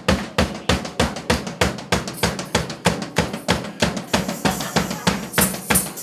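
Live drum kit playing a fast, steady beat of bass drum and snare, with cymbals coming in over the last two seconds.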